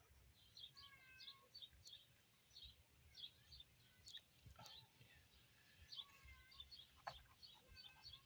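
Faint birds chirping and calling in the background, short repeated high chirps with a few longer calls, over near silence, with a couple of soft clicks.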